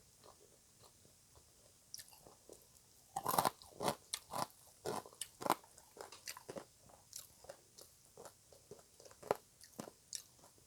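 Close-up chewing of crunchy green papaya salad (som tam): soft chewing clicks at first, then a run of loud crunching bites a few seconds in, settling back to quieter, wetter chewing.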